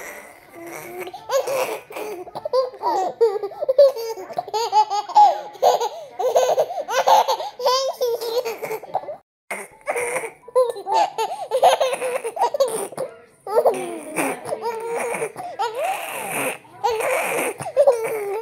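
A toddler laughing in repeated bouts of giggles and breathy laughs, with brief breaks about halfway through.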